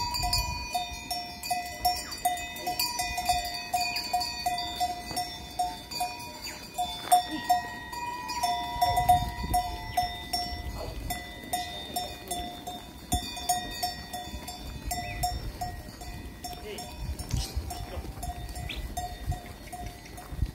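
Many bells on a large flock of sheep, clanking and ringing together without pause, several pitches at once.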